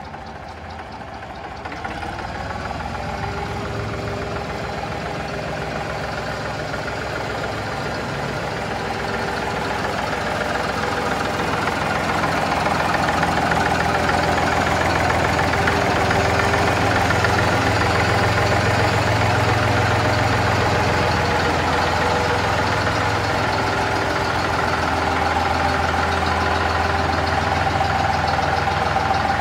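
Fordson Dexta tractor engine running at a low, steady speed as the tractor is driven slowly. It grows louder over the first dozen seconds and then holds steady. The revived engine runs well, and the owner judges it will be fine.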